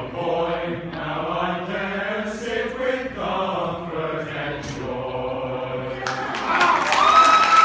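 Male a cappella ensemble singing the last line of a comic song in close harmony. About six seconds in, the singing gives way to audience applause.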